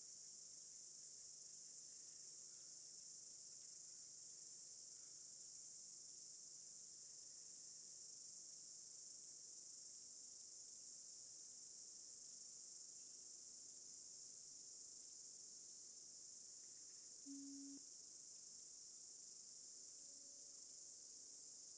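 Near silence: a faint, steady high-pitched hiss with no words, and one brief low tone about seventeen seconds in.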